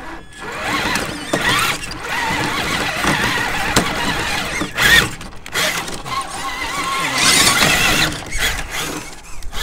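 Electric motor and gears of a radio-controlled rock crawler whining and squealing, the pitch wavering up and down with the throttle, louder in surges about halfway through and near the end.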